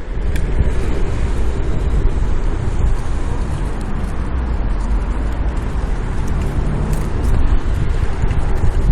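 Wind rushing over the microphone and the steady rumble of a bicycle rolling on a road during a test ride, with no clicking heard from the newly replaced pedal or the serviced saddle: the noise appears to be cured.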